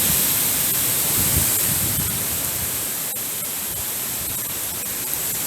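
Storm-force wind rushing through tree leaves, a steady loud rush that eases slightly partway through, with gusts buffeting the microphone.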